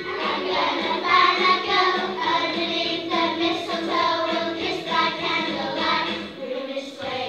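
A choir of schoolchildren singing together.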